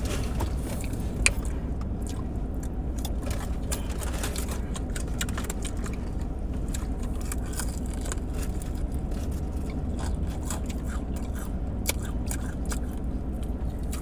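Close-up chewing and crunching of fried chicken wings, many small crisp crackles and mouth clicks, over a steady low rumble.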